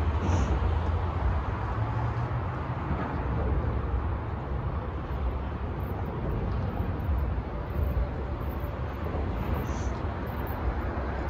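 Steady low rumble of city traffic noise.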